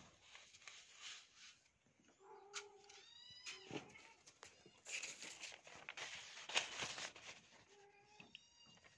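Dry grains rustling and sliding as a hand digs and sweeps through a heap of rice to uncover a conch shell, loudest about five to seven seconds in. Two short pitched calls, an animal in the background, come about two seconds in and again near the end.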